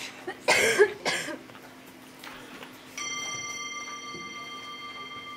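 A few brief clattering handling noises, then about three seconds in a small metal bell is struck once and rings on with a clear tone of several high pitches, fading only slowly. The bell marks the start of a meditation session.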